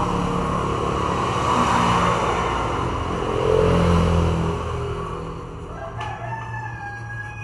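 A steady rushing noise that swells and fades, then, about six seconds in, a long pitched call that holds steady and breaks off at the end.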